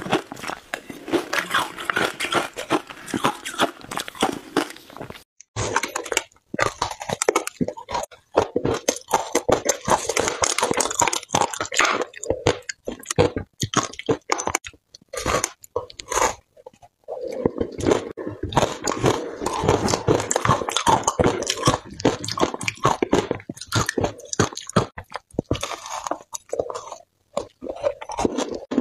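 Shaved ice being bitten and chewed close to the microphone: dense, rapid crunching and crackling. There is a brief break about five and a half seconds in, then crunching of hand-held chunks of packed shaved ice.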